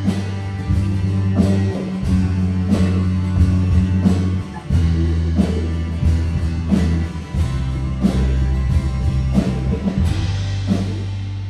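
Instrumental worship-rock band music: electric bass guitar holding long low notes that change every second or two, over drums and guitar. The music fades out near the end.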